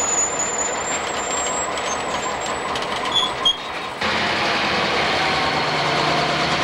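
McCloud River Railroad diesel-electric locomotive engine running steadily at close range. About four seconds in the sound cuts to a louder, steadier engine rumble.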